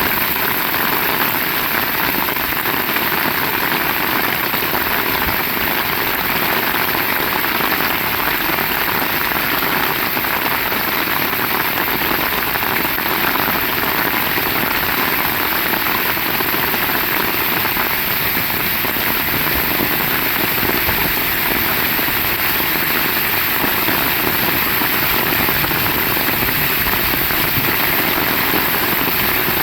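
Heavy rain falling steadily, an even, unbroken hiss of drops on surfaces.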